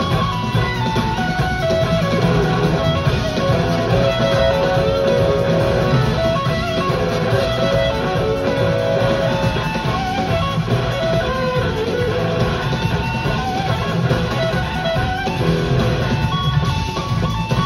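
Live rock band playing an instrumental jam: an electric guitar lead plays long held notes over bass guitar and drums.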